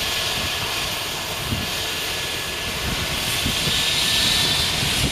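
Eurocopter EC135T helicopter running on the ground with its rotor turning: a steady turbine whine and rotor noise, swelling slightly about three to four seconds in.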